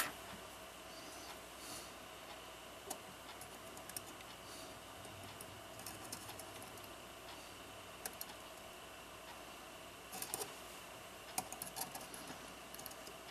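Light, irregular clicks and small metallic taps of clock parts and hand tools being handled, a few isolated and a short cluster near the end, over a faint steady background tone.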